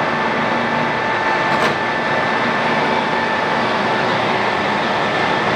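ACER Dynamic 29x60 heavy-duty engine lathe running with its spindle at 420 RPM, a steady machine hum with a faint whine from the geared drive. The carriage is under power feed. A higher whine drops out about one and a half seconds in.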